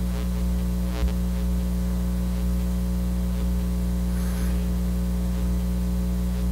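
Steady electrical mains hum in the audio system, a constant low buzz of several steady tones, with a faint click about a second in.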